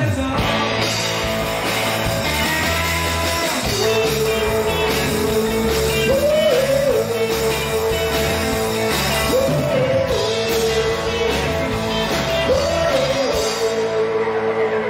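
Live rock band playing a song, with a long held lead note that bends up and back down three times, about every three seconds.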